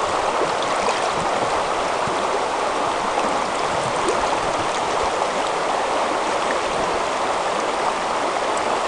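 Shallow river flowing over a rocky bed close to the microphone: a steady, even rush of water.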